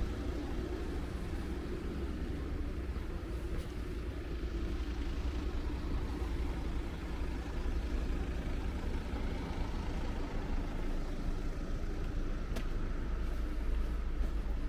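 Street traffic: motor vehicles running close by, a steady low rumble.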